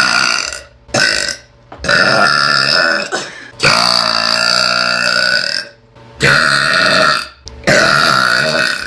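A girl burping loudly six times in a row, the longest burp drawn out for about two seconds in the middle. The burps are from gas after gulping carbonated soda.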